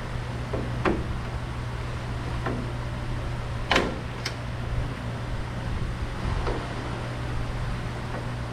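A few scattered light knocks and clunks of a sheet-metal body panel being handled and set against a car body, the sharpest about four seconds in, over a steady low hum.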